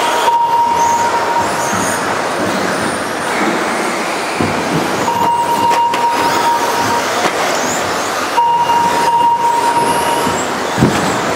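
Radio-controlled model buggies racing on a carpet track: a steady noise of motors and tyres, with a steady high tone that comes and goes a few times and a couple of short dull knocks.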